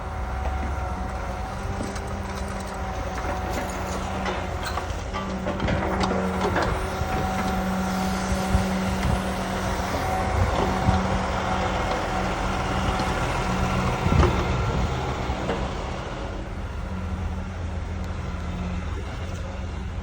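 Heavy diesel vehicle, such as a debris truck, running steadily with a low drone and occasional knocks and clanks, the loudest a little after midway.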